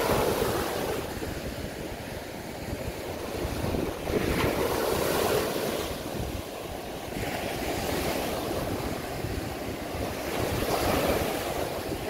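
Small waves breaking and washing up a sandy beach, the surf swelling and ebbing every five or six seconds, with wind buffeting the microphone.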